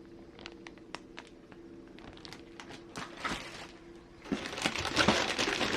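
A few faint clicks and taps as plastic parts are handled. About four seconds in, a louder, dense crinkling of plastic packaging starts.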